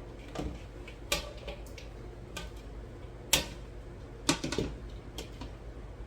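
Several sharp, irregular kitchen knocks and clinks from cucumbers being handled at the counter, with the loudest two a little past the middle.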